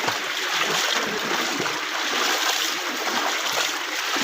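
Floodwater rushing in a steady, unbroken flow, strong enough to have cut through the road.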